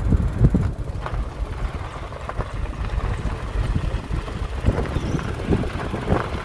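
Wind buffeting the microphone outdoors: a low, uneven rumble with irregular gusts.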